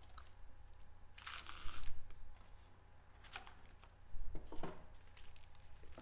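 Foil-wrapped hockey card packs crinkling as they are lifted out of a metal tin and set down, with a few light clicks. The loudest crinkle comes about a second and a half in, and another cluster of crinkles and clicks comes a little after four seconds.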